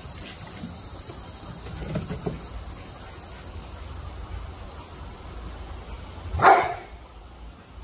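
An American bully dog barks once, short and loud, about six and a half seconds in, over faint high insect chirring near the start.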